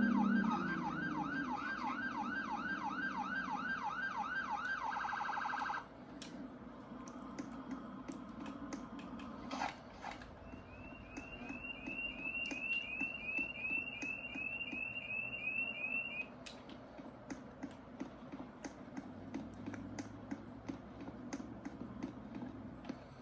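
Electronic house-alarm siren sounding a string of rising whoops, about four a second. About five seconds in it switches to a fast warble and cuts off suddenly. Later a run of short high chirps repeats about twice a second for some six seconds, with faint clicks throughout.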